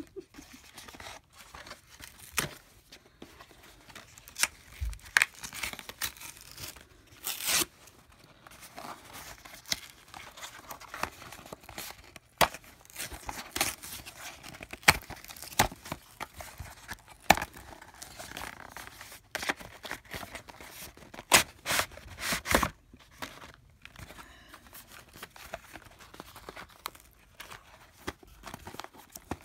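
Cardboard packaging being torn open by hand: a long run of irregular ripping sounds of tearing card, some short and sharp, others drawn out.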